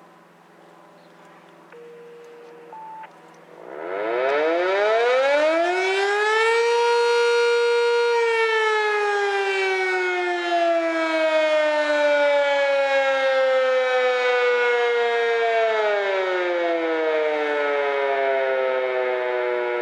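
Sentry 3V8-H outdoor warning siren with a single-phase motor sounding the short alert signal. It winds up from about four seconds in, its pitch rising steeply to a peak, then holds loud while slowly sagging in pitch, with a quicker drop near the end. Just before it starts, a radio scanner gives two short steady tones, one and then a higher one.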